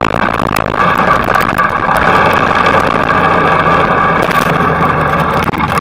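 Motorcycle engine running at a steady pitch while the bike rides along at road speed, with rushing noise over it.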